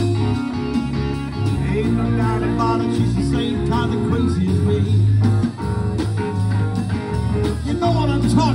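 Live blues-rock band playing: electric guitar with bending lead notes over a drum kit, keyboard and a steady bass line.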